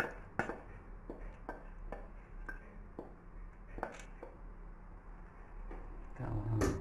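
A spoon scraping and tapping inside a stainless steel saucepan, a string of short scrapes and clicks as the last of the thick pudding is scraped out. Just before the end the saucepan is set down on the gas stove with a louder clunk.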